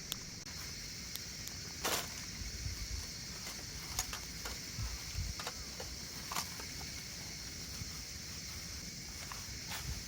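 Outdoor ambience: a steady high hiss and low rumble, with scattered small clicks and knocks and a brief rustle about two seconds in.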